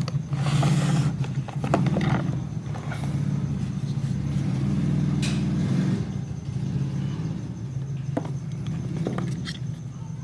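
Hands handling packaging, with scattered light clicks and brief rustles, over a steady low hum.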